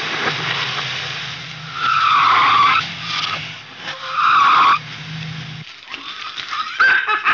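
Cadillac convertible engine running as the car pulls away, with two loud tyre squeals about two and four seconds in. The engine sound stops, and a few light clicks follow near the end.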